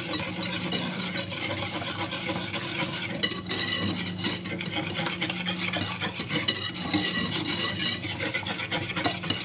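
A kitchen utensil scraping and stirring against a saucepan of cream in a continuous scratchy rub, with a steady low hum underneath.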